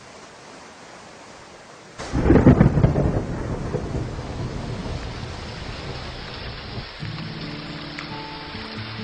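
Steady rain hiss, then a sudden loud thunderclap about two seconds in that rumbles and slowly fades. Music starts about seven seconds in.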